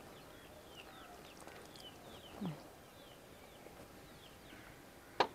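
Faint background bird chirps, many short falling notes, with one louder falling call about halfway through and a sharp knock near the end.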